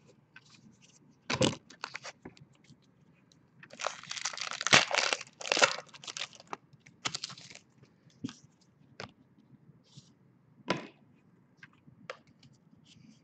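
Foil wrapper of a 2014 Panini Certified football card pack crinkling and tearing as it is opened, loudest for about two seconds near the middle, with scattered sharp clicks and snaps from the pack and cards being handled.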